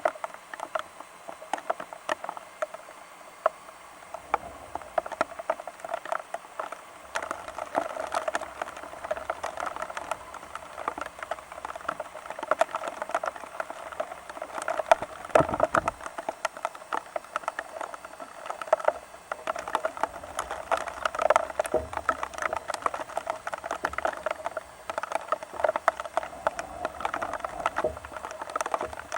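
Rain pattering: a dense, irregular stream of drops ticking on a surface, with one low thump about halfway through.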